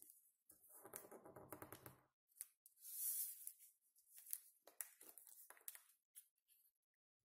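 Faint rustling and creasing of a square of origami paper being folded by hand. There is a buzzy scrape about a second in, a crisp swish around three seconds in, then several short crinkles.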